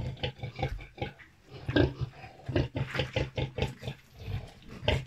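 A sow and her newborn piglets grunting and squealing in a quick, irregular run of short calls while the litter suckles.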